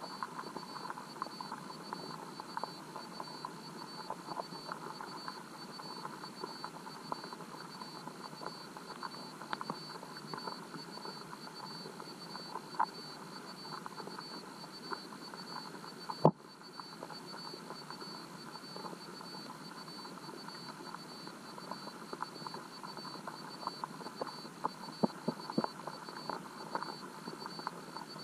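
Muffled underwater rushing of river current heard through a submerged camera's waterproof housing, with a faint steady high whine and many small scattered clicks. A single sharp knock stands out about sixteen seconds in.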